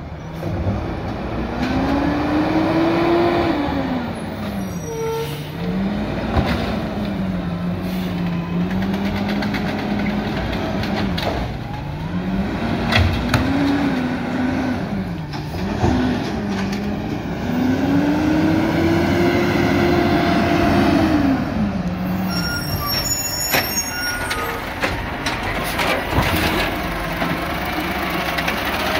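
Diesel engine of an Amrep Octo automated side-loader garbage truck revving up and falling back again and again as it works its hydraulic arm to lift and empty curbside carts, with several sharp knocks from the arm and carts.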